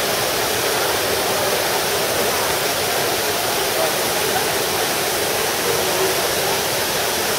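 Water of the Trevi Fountain cascading over its rock steps and falling into the basin: a steady rushing splash.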